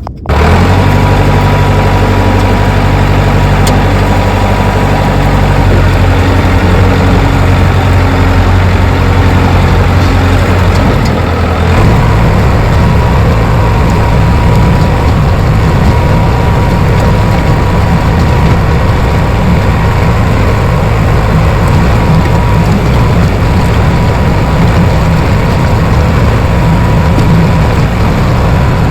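Bulldozer's diesel engine running loud and steady, with a thin steady whine over it; the engine note shifts about twelve seconds in.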